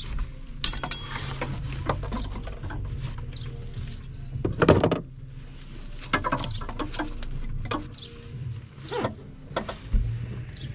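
A spanner and metal engine-bay parts clicking, scraping and knocking in short irregular bursts as work goes on at the top of a manual gearbox, over a steady low hum. The loudest knock comes about halfway through.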